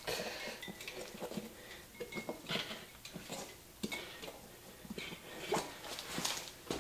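Hands fitting a knobby dirt-bike tire and its inner tube onto a spoked rim: scattered rubber scuffs and brief squeaks with light clicks and clatter.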